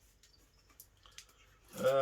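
A few faint clicks of handling in a quiet room, then near the end a man's voice starts a long, held, slightly wavering vocal sound.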